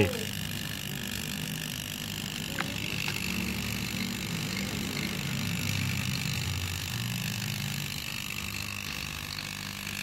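Air-conditioner compressor of about 1.5 tons running steadily as a makeshift vacuum pump, pulling a vacuum on a refrigerator's R600a system: a low hum with a faint high whine over it.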